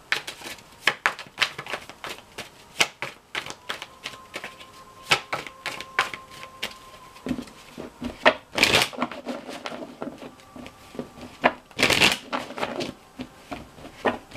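A tarot deck being shuffled by hand: a quick, irregular run of card snaps and clicks, with two longer swishes in the second half.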